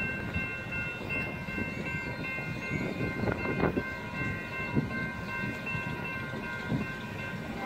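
Union Pacific freight train led by EMD diesel locomotives approaching: a continuous low rumble of the engines and wheels, with several steady high tones held over it.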